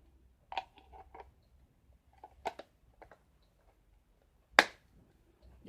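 Plastic clicks and taps of a Sony NP-FW50-type camera battery being handled and fitted into a dual battery charger's slot, ending in one sharp, loud click about four and a half seconds in as it snaps into place.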